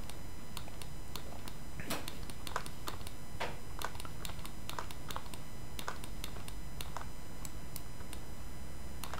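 Irregular clicking of a computer mouse and keyboard, several sharp clicks a second, over a steady low hum.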